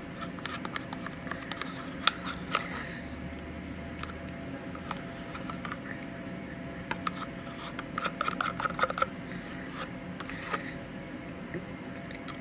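Metal spoon scraping and clicking against a plastic pudding cup in a string of short scrapes and ticks, busiest a little after the middle.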